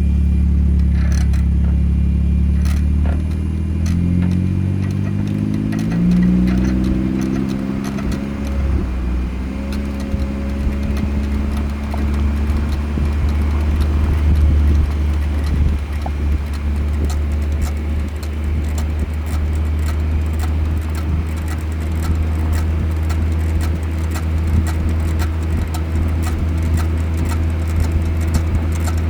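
BMW 440 on the move: its engine climbs in revs for a few seconds and then settles into a steady low drone. Irregular light clicks run through it, the strange noises heard since the brake pads were replaced.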